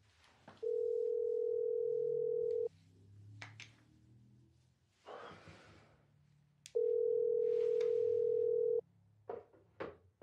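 Telephone ringing tone heard through a handset: two long steady tones of about two seconds each, about four seconds apart, the call ringing unanswered. A few sharp clicks near the end.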